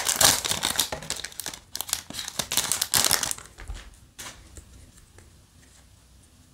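Foil wrapper of a Yu-Gi-Oh! booster pack crinkling as it is torn open and the cards are slid out. The crinkling lasts about three seconds, then dies down to quiet handling of the cards.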